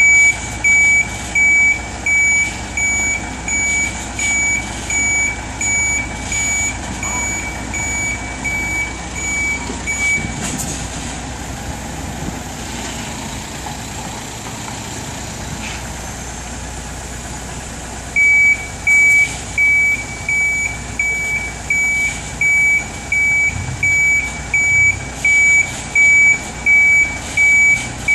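Articulated lorry's reversing alarm beeping steadily, a little faster than once a second, over the low running of its engine as it backs up. The beeping stops about ten seconds in with a short hiss, leaving only the engine, and starts again about eight seconds later.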